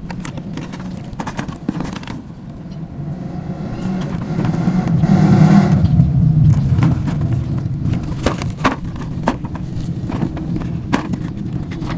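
Hands handling a cardboard box, with short taps and rubs, over a low engine rumble from a motor vehicle that swells to its loudest about five seconds in and then eases off.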